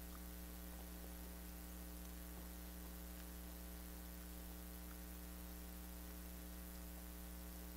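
Steady low electrical mains hum with evenly spaced overtones, unchanging throughout; otherwise quiet.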